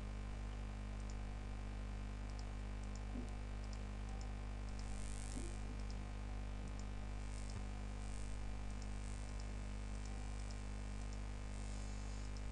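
Steady electrical hum with faint, irregular clicks of a computer mouse and keyboard in use.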